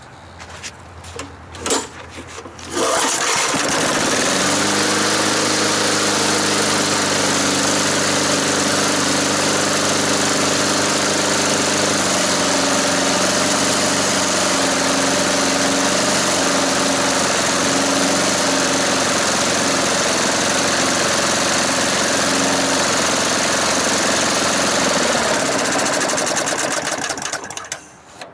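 Lawnmower engine pull-started on gasoline with about 15% vegetable oil mixed in: a few short pulls, then it catches about three seconds in and runs fast and steady. About twelve seconds in its note changes and turns uneven, and near the end it slows and cuts out; it runs better at high rpm and dies when the speed is lowered, the oil mixture not burning cleanly.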